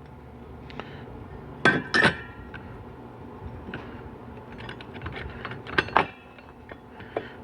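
Steel transmission parts clinking and tapping as a thrust washer and clutch hub are set into a 4L80E clutch pack: a few scattered sharp metallic clinks with short ringing, the loudest two about two seconds in and another pair near six seconds.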